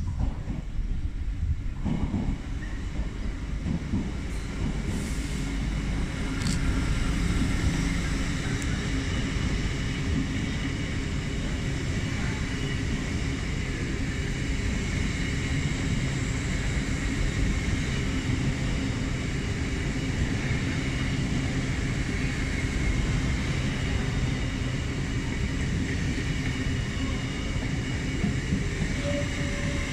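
LNER Azuma high-speed train running along the platform road, a steady rumble of wheels on rail with a hum of held tones from the train's running gear, growing a little louder about six seconds in as the coaches come alongside.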